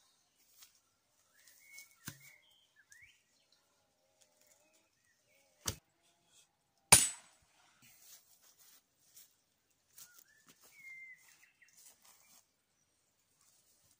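Two sharp strikes on firewood, about a second apart, the second much louder and ringing briefly: blows driving a nail in to split a log. Faint bird chirps come and go.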